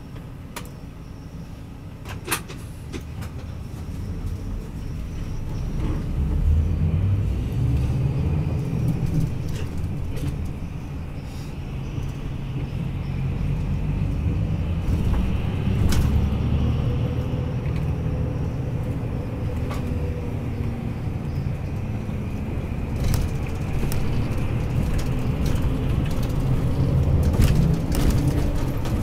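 Cabin sound of a Hino S'elega HD highway coach: quiet and steady at first while it waits, then the engine and road rumble build about five seconds in as the bus pulls away and runs on through city traffic. A few sharp clicks and rattles come from the cabin.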